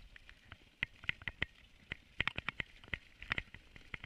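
A dog sled running over snow, heard from the basket: irregular sharp clicks and knocks from the sled and its runners, bunched in quick clusters.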